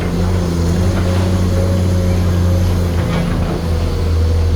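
Komatsu PC210 excavator's diesel engine running at a steady drone while digging, with a couple of faint knocks.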